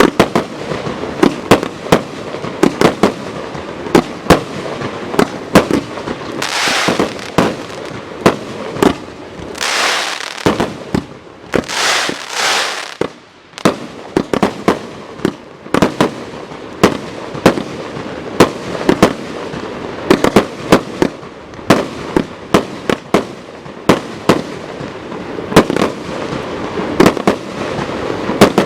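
Consumer firework battery (cake) firing: a rapid series of sharp bangs from shots bursting in the air, with hissing, crackling stretches three times in the middle.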